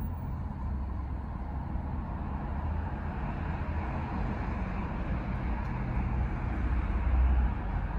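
Steady low vehicle rumble heard inside a car's cabin, swelling briefly near the end.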